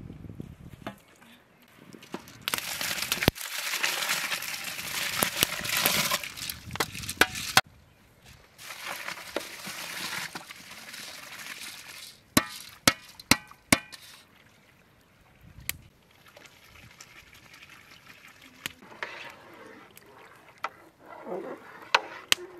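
Large aluminium cooking pots and perforated steamer colanders being handled over a steaming pot. There are long stretches of steady rushing, pouring noise, then a run of sharp metal clinks and knocks about twelve seconds in, as the colanders are lifted off.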